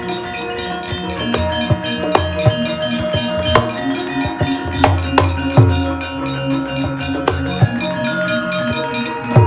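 Javanese gamelan playing a steady rhythmic piece: sustained ringing metal tones over frequent sharp strokes and deep drum beats.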